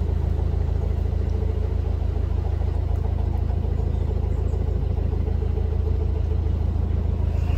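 A narrowboat's engine running steadily while the boat is under way, a low even hum.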